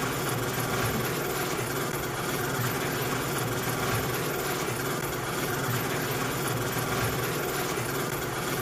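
Garage door opener motor running steadily with a mechanical drive rattle as it closes the door.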